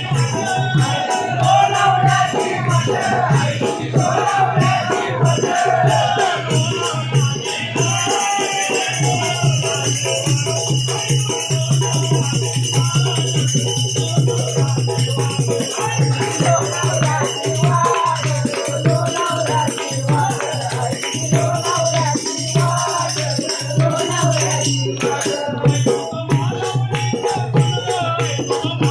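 Marathi devotional song (bhajan): a voice sings over a fast, steady beat of small rattling percussion, with a steady low hum underneath.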